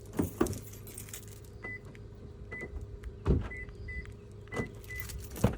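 Clicks and a heavy clunk, loudest about three seconds in, as the 2016 Toyota Camry's door locks are worked, with several faint short high beeps between them.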